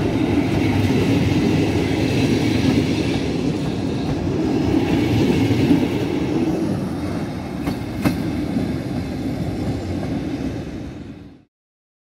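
Passenger coaches of an InterCity train rolling past on the track: a steady rumble of wheels on rails with clatter, and two sharp clicks about eight seconds in. The sound fades out and cuts to silence near the end.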